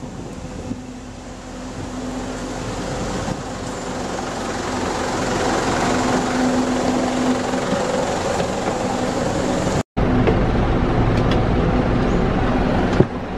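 Bus engine idling: a steady rumble with a low hum that grows louder toward the bus. The sound cuts out briefly about ten seconds in, and there is a sharp click near the end.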